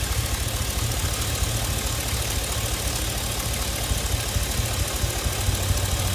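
Chevy Express V8 engine idling steadily with a misfire on cylinder number 1.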